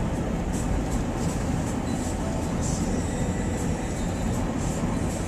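Steady low rumble and hiss of a vehicle in motion.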